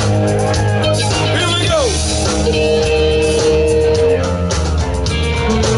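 Live rock band playing an instrumental passage with electric guitars, bass and drums. A lead guitar bends down in pitch about two seconds in, then holds one long steady note.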